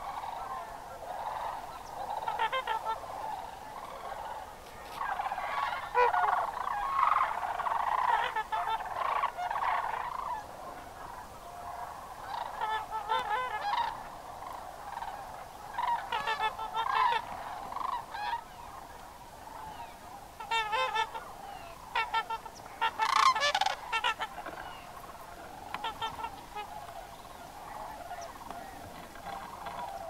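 A chorus of many large waterbirds calling at once: sandhill cranes' rolling, rattled calls mixed with goose-like honking. The calls overlap continuously and swell into louder clusters several times.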